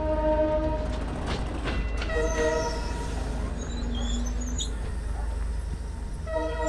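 Passenger train's horn sounding in blasts: a long held note that cuts off about a second in, a short one around two seconds, and another starting near the end, over a steady low rumble.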